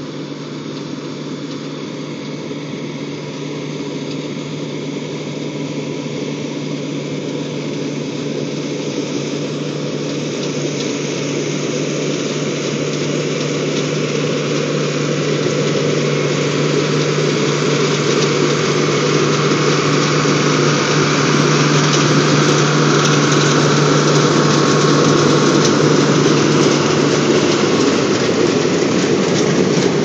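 Deutz D130-06 tractor's air-cooled six-cylinder diesel running steadily as it pulls an International 82 combine harvesting spelt, together with the mechanical noise of the combine working. It grows steadily louder as the machines draw near.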